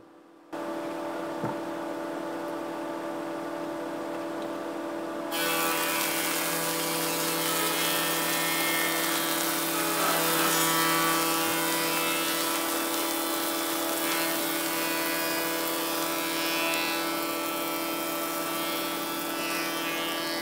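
Thickness planer running, its motor humming steadily. About five seconds in a board reaches the cutterhead and a louder, hissing cutting noise joins the hum, going on steadily as the board is planed to thickness.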